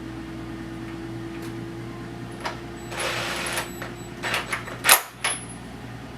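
New spark plug being threaded and tightened into a small engine's cylinder head with a socket wrench: a brief scraping, whirring rattle and a handful of irregular sharp metal clicks, the loudest about five seconds in.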